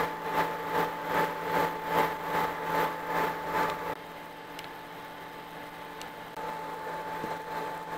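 Copper Chef induction cooktop heating a pot of water on medium: a steady high-pitched whine with a fan hum. For the first few seconds a rhythmic pulsing hiss comes about two to three times a second, then stops.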